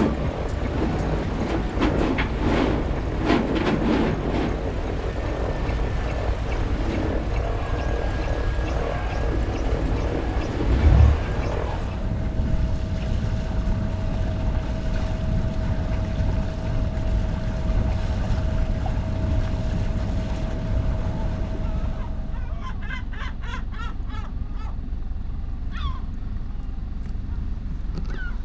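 Wind and water noise aboard a sailing yacht, then a steady hum through the middle, then gulls calling in quick repeated cries near the end.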